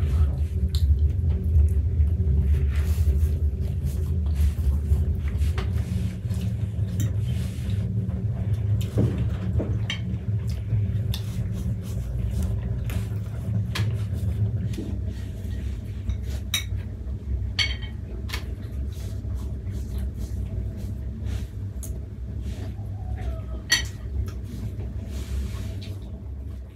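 A steady low rumble that drops a little about halfway through, with scattered light clinks and taps of dishes and cutlery.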